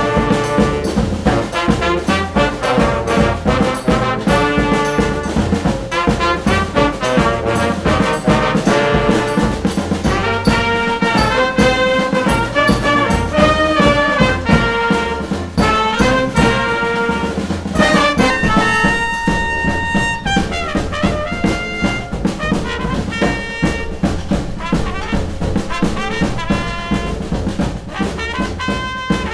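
Brass band playing an upbeat tune: trombones, trumpets and saxophones over a moving bass line and a steady beat.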